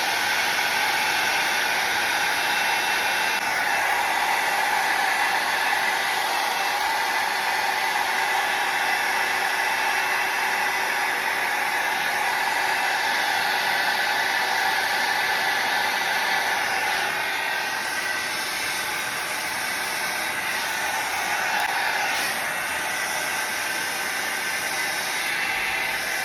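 Kemei rotating hot-air brush (a hair dryer brush) running: a steady fan whirr with a motor whine, a little quieter over the last third.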